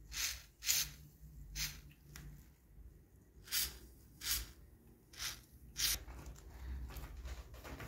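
Short hisses from an aerosol lubricant can sprayed through a red straw into the rusted, jammed pivot of a pair of pliers: seven quick bursts within about six seconds.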